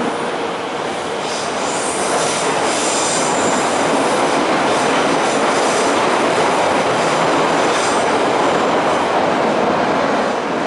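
Inside a running 81-717.5M "Nomernoy" metro car: the steady, loud running noise of wheels on rail and traction motors. A high wheel squeal rides over it for a couple of seconds near the start.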